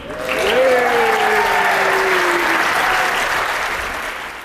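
Audience clapping, with a drawn-out cheer that slides down in pitch through the first couple of seconds. The clapping fades slightly toward the end.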